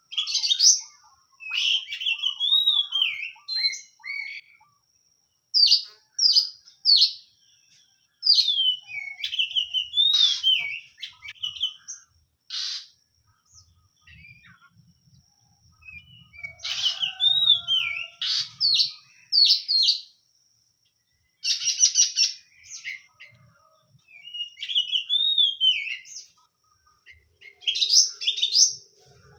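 Oriental magpie-robin (kacer) singing: varied phrases of clear whistles and rapid chirps, broken by short pauses of a second or two.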